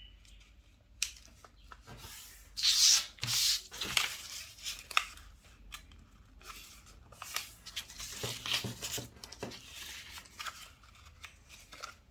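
A sheet of paper being folded by hand: irregular rustling, sliding and crisp scraping as the corners are folded in and the creases pressed flat, loudest about three seconds in.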